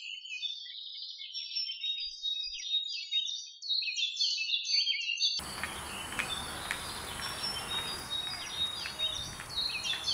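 Several birds singing, a dense run of quick chirps and trills. About five seconds in, a steady outdoor hiss with a thin, high, steady drone comes in beneath the birdsong.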